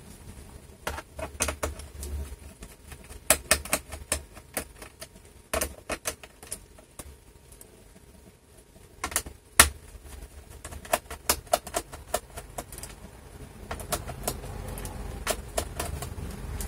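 Small screws being undone with a screwdriver from a laptop's plastic bottom case and set down on a desk: an irregular scatter of sharp clicks and taps, the loudest about nine and a half seconds in.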